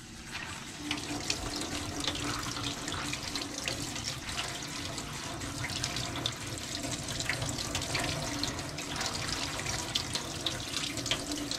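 Kitchen faucet running onto cooked black beans in a plastic colander and splashing into a stainless steel sink, with the beans being stirred by hand as they are rinsed until the water runs clear.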